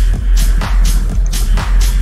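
Electronic background music with a heavy bass and a steady beat, about two hits a second.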